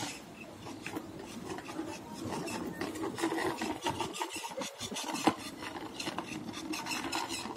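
Hard plastic wheels of a child's ride-on swing car rolling and scraping over rough concrete, a continuous gritty sound made of many fine rapid clicks.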